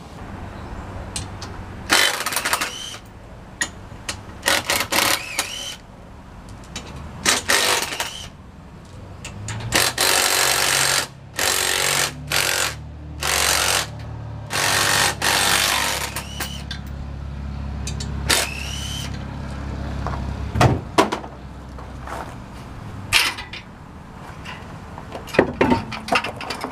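Impact wrench hammering the front wheel's lug nuts loose in repeated short bursts, some with a rising whine as the motor spins up, to take the wheel off. A low steady hum runs underneath through the middle of the stretch.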